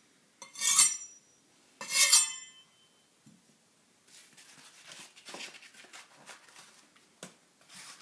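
Knife blade drawn twice across a whetstone, each stroke a loud scrape with a metallic ring, then quieter irregular scraping and light clicks in the second half.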